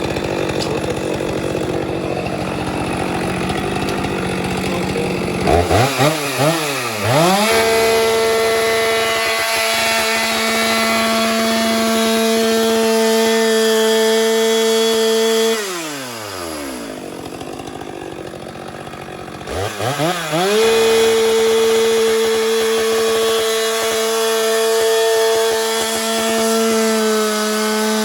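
Chainsaw idling, then twice revved quickly up to full throttle with a few short blips. Each time it is held at a steady high pitch for about eight seconds, dropping back to idle between runs and falling off again near the end.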